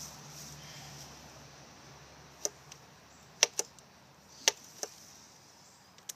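Sharp metallic clicks of a Henry AR-7 .22 survival rifle's action being worked by hand, about seven, some in quick pairs, as a misfed round is cleared.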